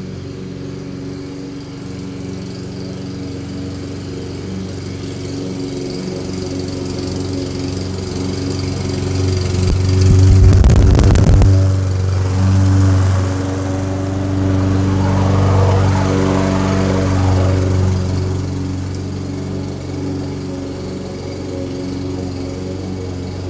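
Toro Personal Pace Recycler walk-behind mower's Briggs & Stratton engine running steadily under cutting load. It grows louder as the mower comes up and passes close by, loudest with a brief rush of noise about ten to eleven seconds in, then fades as it moves away.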